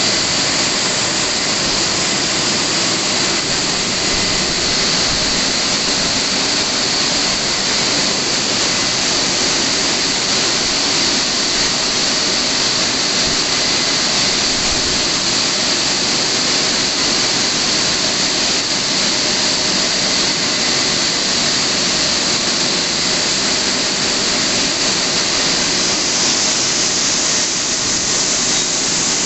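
WashTec SoftCare 2 Pro rollover car wash gantry running over a car: a steady, loud rushing hiss of air or water with a faint steady whine beneath it.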